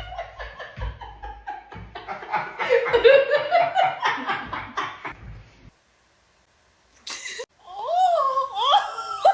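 People laughing hard in repeated bursts for about five seconds, then a brief dead silence. Near the end, a voice makes a wavering, sliding vocal noise.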